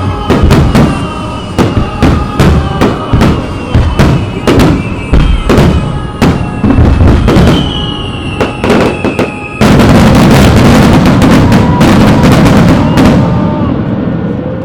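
Aerial fireworks shells bursting in quick succession, one sharp bang after another, then about ten seconds in a dense unbroken barrage of bursts and crackle for a few seconds that dies away near the end: a display's closing salvo. Music plays underneath.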